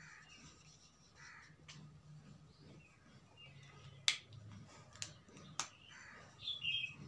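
Three sharp plastic clicks, about four to six seconds in, from whiteboard markers being capped and uncapped during a switch from red to green marker, over a faint low room hum.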